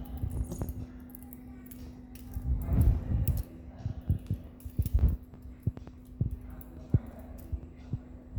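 Butterfly knife being handled: irregular metal clicks and clacks of the handles and blade, with some dull thumps of handling, over a steady low hum.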